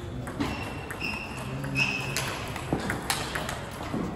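Table tennis rally: the celluloid-type ball clicking sharply off the bats and the table at an uneven pace, with a few short high squeaks in the first half.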